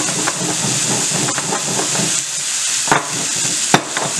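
Stone pestle grinding whole black peppercorns and dried herbs in a stone molcajete (mortar), a steady gritty scraping as it is worked round in circles. A few sharp knocks of stone on stone, the loudest near the end.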